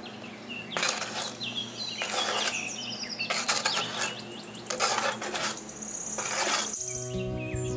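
A small metal trowel scraping sand across a plastic basin floor, in about five separate strokes, with birds chirping in the background. Acoustic guitar music comes in near the end.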